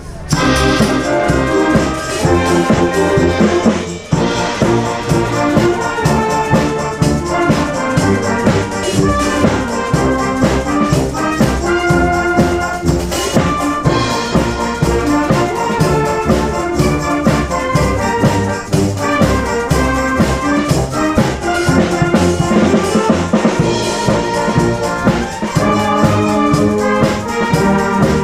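A wind band playing a piece, with brass (tuba, trombones and trumpets) over a drum kit.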